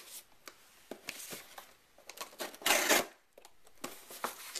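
A cardboard shipping box being handled and opened with scissors: scattered clicks and knocks, and one short, loud rasp about two and a half seconds in.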